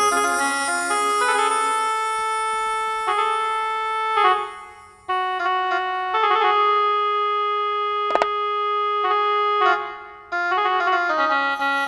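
Electronic keyboard playing a slow solo melody in held, organ-like notes, the sound dipping briefly twice. A single sharp click sounds about two-thirds of the way through.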